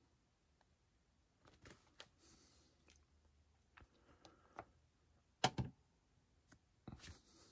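Quiet handling of a plastic model kit part and a plastic-cement bottle on a workbench: scattered soft clicks and taps, with a sharper double knock about five and a half seconds in and another knock near the end.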